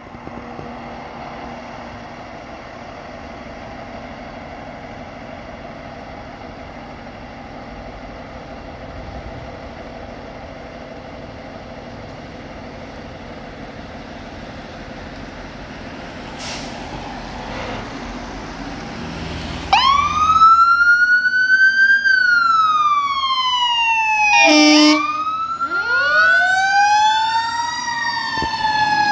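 Fire engine's engine running steadily, then its siren starts about two-thirds of the way in and wails up and down, loud. There is one short horn blast about halfway through the siren.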